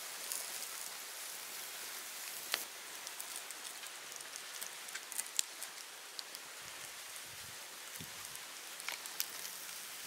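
Turkey grilling over a fire: a steady sizzling hiss with scattered sharp crackles.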